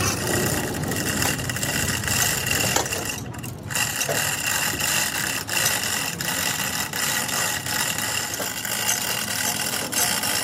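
Busy mechanical clatter: many sharp clicks and metal knocks over a steady mechanical hum, with a brief dip in loudness a few seconds in.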